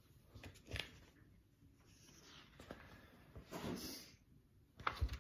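Faint rustle of a picture book's paper page being turned, with a few soft knocks from handling the book, the sharpest near the end.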